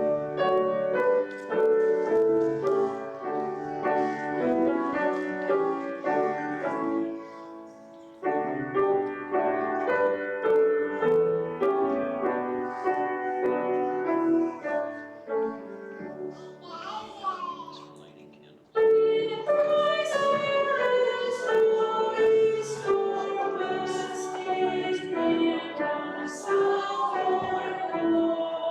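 Piano playing a hymn tune in phrases, with voices singing along from about two-thirds of the way through.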